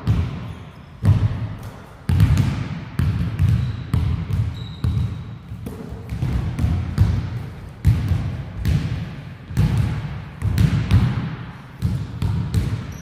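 Basketball bouncing on the court, dribbled in a run of dull thuds at an uneven pace of roughly one bounce a second.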